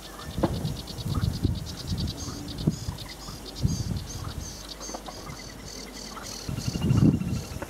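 Sedge warbler singing a fast run of rapidly repeated high notes that changes pattern as it goes. Gusts of wind buffet the microphone, the strongest near the end.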